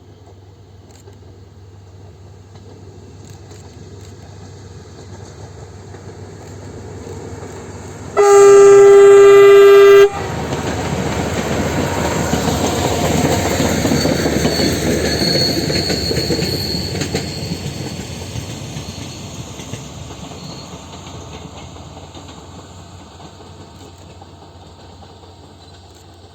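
Adif VUR 606 ultrasonic rail-inspection vehicle approaching with a rising rumble, sounding one long, steady horn blast of about two seconds, then running past with the noise of its wheels on the rails, which swells and fades away.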